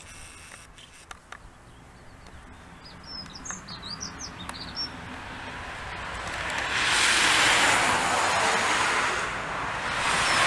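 Small birds chirping over a quiet background, then from about six seconds in a loud rushing noise swells up, eases briefly and rises again near the end.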